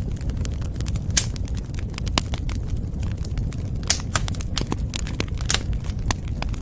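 Wood fire burning in a fireplace with a steady low rumble of flame and irregular crackles, with a few sharper pops.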